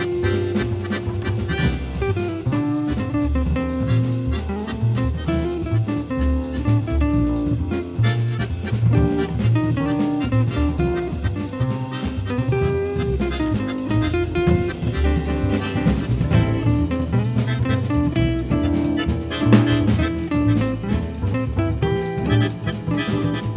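Background jazz music with guitar, bass and drums.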